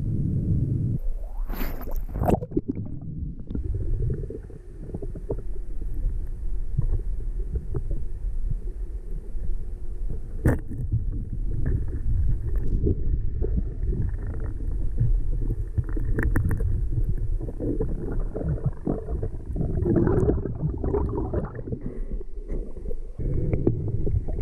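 Muffled underwater rumble and gurgling picked up by a camera under water, with scattered small clicks and knocks: water moving and bubbles from a diver on a snorkel dive.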